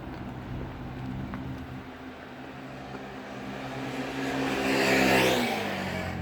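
A motor vehicle passing close by: its engine hum and tyre noise grow louder to a peak about five seconds in, then the pitch drops as it goes past.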